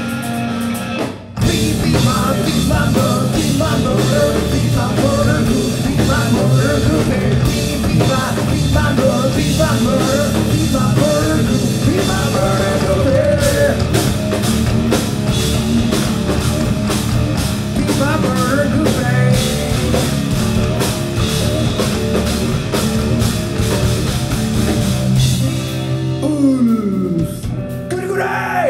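Live metal band playing loud: electric guitars, bass and drum kit. The band stops for a moment about a second in and comes back in full, and near the end the band thins out while a note slides down in pitch.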